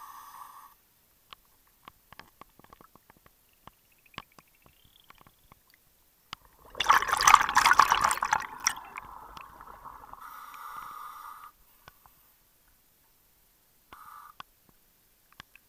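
Scuba diver breathing underwater through a regulator. A steady inhalation hiss is heard at the start and again around ten seconds in. About seven seconds in there is a loud burst of exhaled bubbles, and small bubble clicks fall between the breaths.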